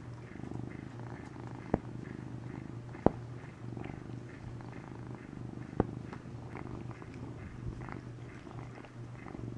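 Domestic cat purring steadily close to the microphone as it licks its paw, with three sharp clicks spread through, the loudest about three seconds in.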